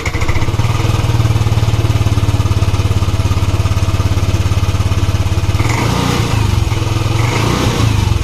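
Yamaha Tricity 125 scooter's single-cylinder four-stroke engine running steadily, having just started; the starting fault was compression lost to a badly worn piston and cylinder. The note changes about six seconds in.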